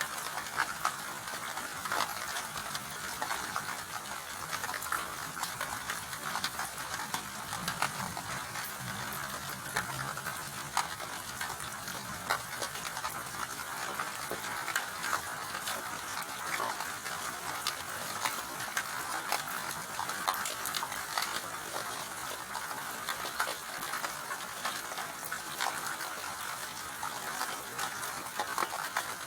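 Steady rain, with many separate drops clicking sharply throughout.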